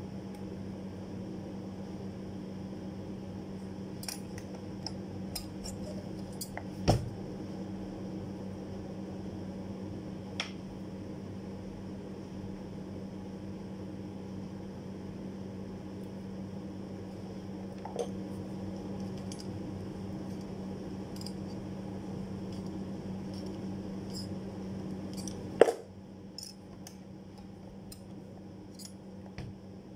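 A steady low hum with scattered light clicks and taps of hand tools on a plywood die board. Two louder knocks stand out, one about seven seconds in and one with about four seconds left, where the hum drops away.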